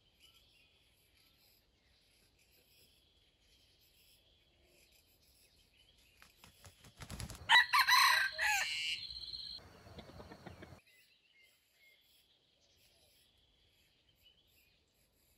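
A junglefowl rooster crowing once, loud, starting about halfway through and lasting about three seconds. A faint, high, steady insect drone runs underneath.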